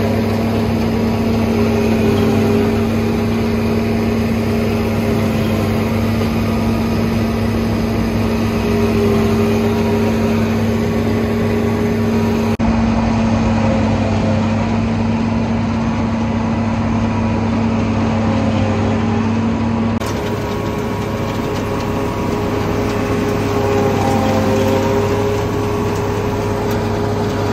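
Large farm machine's engine running at a steady speed, a constant drone that shifts abruptly twice, about halfway and about three-quarters of the way through.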